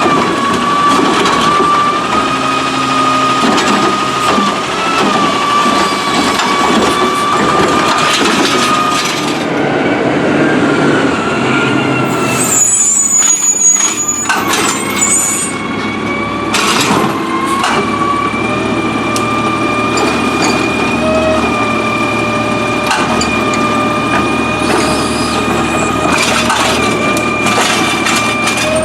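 Autocar ACX Heil Rapid Rail automated side-loader garbage truck running, with its steady high-pitched whine over the engine and scattered knocks and clatter. A short high hiss about halfway through.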